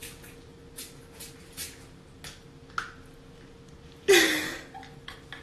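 A person sneezing once, sudden and loud, about four seconds in, after a few faint taps.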